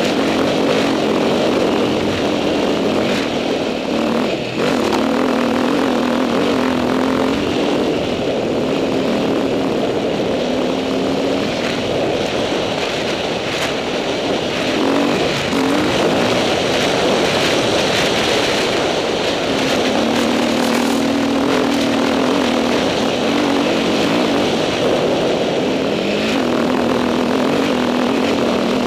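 Dirt bike engine running under load while riding a rough dirt trail, its pitch rising and falling with the throttle over a steady rushing noise.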